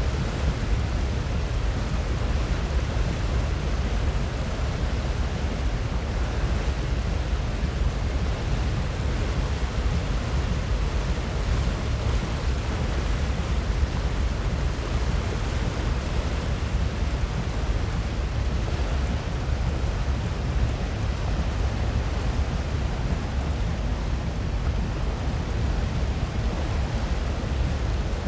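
Wind buffeting the phone's microphone: a steady, loud, gusty low rumble with a hiss above it.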